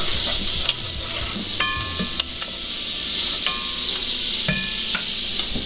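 Butter melting and sizzling in hot bacon grease in a cast-iron pot, while a wooden spoon stirs and scrapes the bottom and knocks against the pan now and then. A short steady whine sounds three times in the background.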